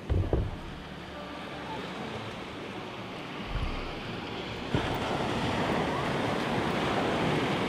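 Ocean surf washing onto a beach, with wind buffeting the microphone. A loud low thump comes right at the start and a smaller one midway, and the surf noise grows louder about two-thirds of the way in.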